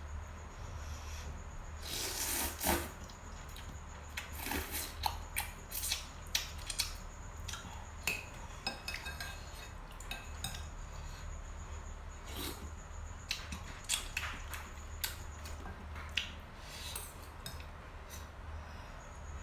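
Cutlery clinking and scraping against a bowl or plate while eating, in irregular sharp clicks, some louder than others, over a steady low hum.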